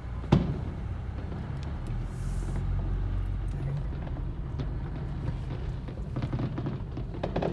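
Steady low road rumble of a car heard from inside the cabin while driving. A single sharp bang comes about a third of a second in, and a few lighter clicks and pops come near the end.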